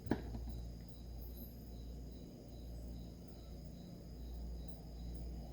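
Faint steady background: a low hum with thin high whining tones, one of them pulsing softly about four times a second, and a single light click just after the start.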